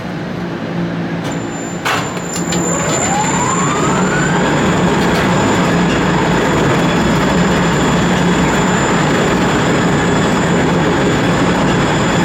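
Construction personnel hoist (man lift) starting its climb: a sharp clack about two seconds in, then the hoist's drive motor whine rises in pitch and settles into a steady, loud running noise.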